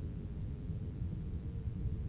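Steady low rumble of wind-like storm noise, heavy in the bass and wavering without pause.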